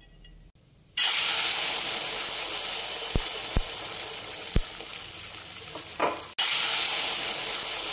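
Beaten egg with chopped chives poured into hot oil in a frying pan, sizzling loudly. The sizzle starts suddenly about a second in, drops out briefly about six seconds in, and comes straight back.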